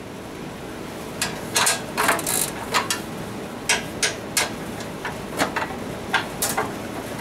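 Hand ratchet wrench clicking irregularly, in single clicks and short bursts, as a bolt is turned. The ratchet is acting up, which its user puts down to the little gear inside the wrench.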